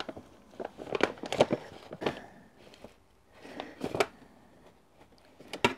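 Plastic-and-foil flameless ration heater bag rustling and crinkling as a hot ration can is pulled out of it by hand, with a few light knocks and a sharp click near the end.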